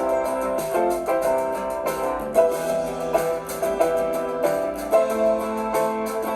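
Background music: piano-like keyboard playing a melody over chords at a steady pace.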